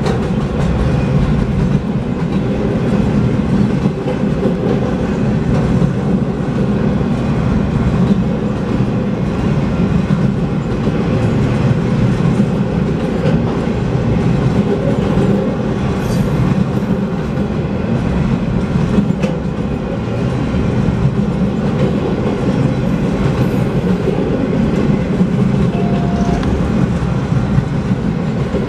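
Empty wind-turbine freight cars rolling steadily past at speed: a loud, continuous rumble of steel wheels on the rails.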